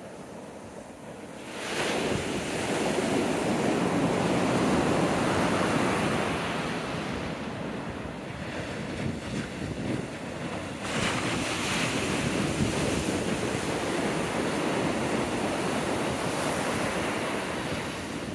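Heavy ocean surf, whipped up by an approaching tropical storm, breaking and washing up the beach. It swells up about a second and a half in and stays loud, easing briefly about eleven seconds in before building again.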